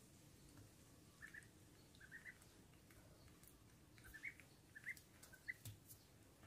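Faint, short high peeps in small clusters of two or three, coming a few times: a young duck peeping.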